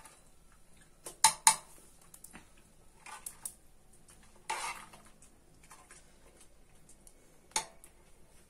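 Metal cookware being handled at a pressure cooker: scattered clinks and clatters of metal on metal, the loudest two close together about a second in, a short clatter around the middle and one more clink near the end.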